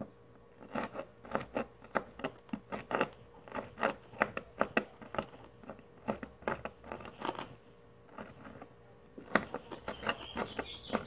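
Kitchen knife cutting green bell pepper into small pieces: a quick, irregular run of sharp chopping clicks, a short pause about two-thirds of the way through, then the chopping resumes.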